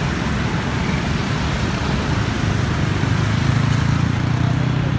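Dense motorbike and scooter traffic running past close by, a steady wash of small engines and tyre noise. A low engine hum swells louder in the second half.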